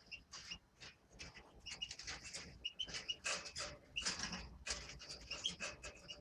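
Caged finches giving many short, sharp chirping calls at irregular intervals, mixed with rustling wing flutters as a bird moves about the cage bars and perch.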